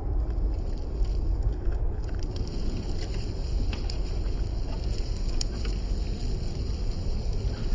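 Small 1/12-scale RC crawler working over rocks, heard as faint scattered clicks and crunches of its tyres and chassis, under a steady low rumble of wind on the microphone.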